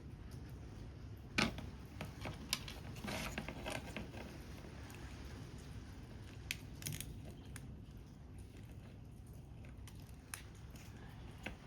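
Paper-craft work sounds: scattered small snips, clicks and paper handling, the loudest about a second and a half in and a cluster a couple of seconds later, over a steady low background hiss.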